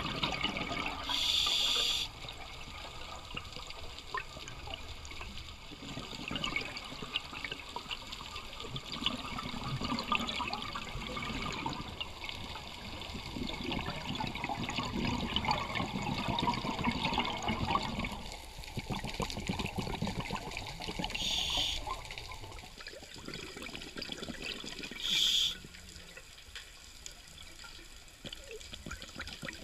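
Underwater sound picked up by a diving camera: a steady crackling and bubbling of water, with three short hissing bursts, one about a second in and two in the last third.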